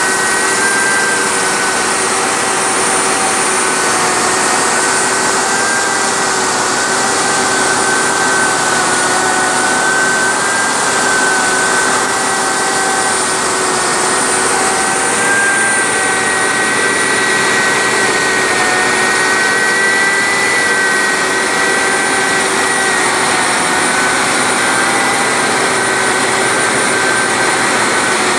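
Portable crankshaft grinding machine running on a main journal of a marine diesel crankshaft, grinding it undersize: a steady whine with two high tones that waver slightly in pitch, over a loud even rushing noise.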